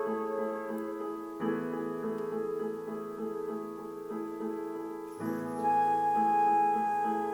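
Slow instrumental music: sustained chords over a pulsing figure of repeated low notes. The harmony changes twice, and a single held higher note enters in the second half.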